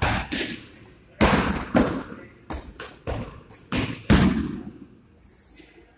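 Muay Thai kicks and punches smacking into Thai pads and a belly pad held by a trainer. A string of sharp, echoing smacks, with several coming in quick succession in the middle.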